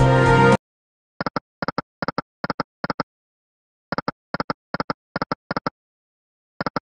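Online slot machine's reel-stop sound effects: short double blips about 0.4 s apart, five in a row as the reels of a free spin stop one after another, then five more for the next spin, and one more near the end. A burst of game music cuts off about half a second in.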